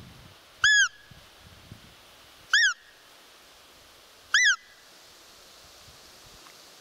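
Roe deer call (manok) blown three times, short high peeps about two seconds apart, each rising then falling in pitch: an imitation of a roe doe's squeak, used to lure a rutting buck.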